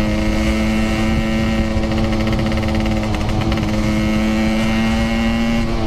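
Yamaha RX-King two-stroke single-cylinder motorcycle engine running at steady revs under way, over a low wind rumble on the microphone. The revs dip briefly near the end.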